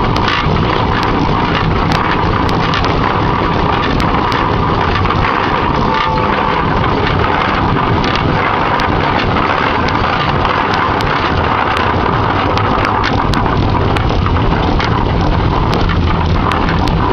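1908 Peerless Model S steam traction engine running while under way, a steady mechanical clatter with scattered sharp clicks and knocks.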